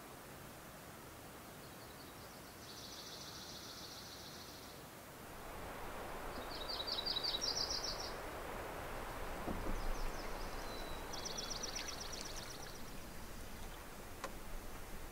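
A small songbird sings a fast, even trill three times, each one to two seconds long. From about five seconds in, a soft rush of water from a canoe moving across calm lake water rises beneath the birdsong.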